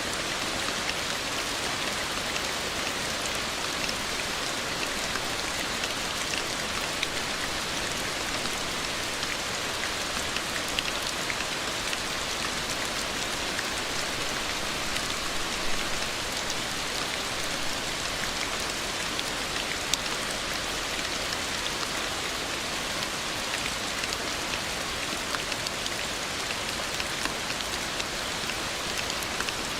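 Steady rain falling on a surface, with many individual drops ticking.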